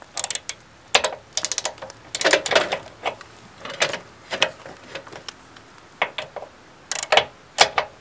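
Socket ratchet wrench clicking in short, quick runs as its handle is swung back, tightening the mounting bolts of a new trailer tongue jack.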